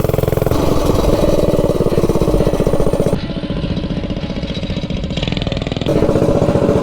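Stage 3 single-cylinder minibike engine running hard on a ride. It runs well, and gets quieter from about three seconds in until about six seconds, then loud again.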